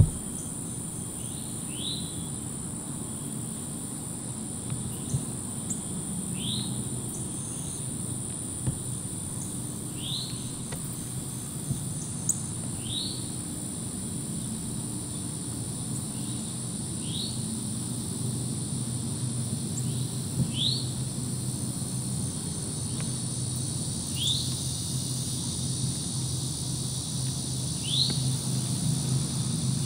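Dusk outdoor ambience: a steady high-pitched drone of insects, with a bird repeating a short rising call every three to four seconds. A low steady hum runs underneath and grows louder near the end.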